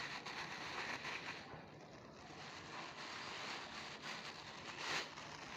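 Faint rustling of plastic rubbish being handled, with a louder rustle about five seconds in.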